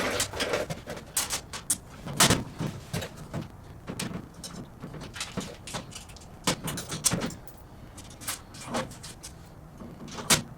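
Irregular clicks, taps and knocks of metal hardware being handled and fitted as casters are bolted onto a steel tool cart, some with a short ring.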